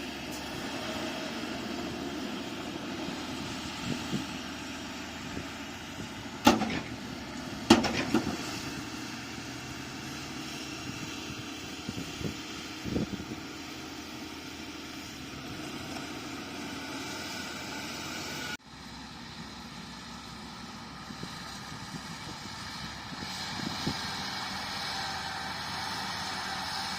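Bulldozer's diesel engine running steadily while it works, with two loud metallic clanks about six and a half and eight seconds in and a few lighter knocks a few seconds later. About two-thirds of the way through, the sound cuts off abruptly and then resumes a little quieter.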